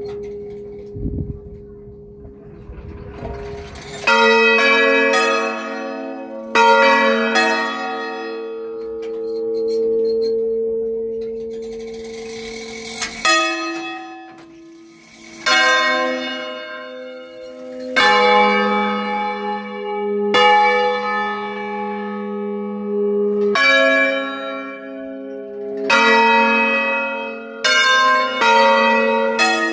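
A five-bell concerto in A-flat of bronze church bells, cast by Giorgio Pruneri in 1907, rung by swinging the bells, heard close up in the bell chamber. From about four seconds in, strokes come at irregular intervals, sometimes two or three in quick succession. Each bell is left ringing on under the next.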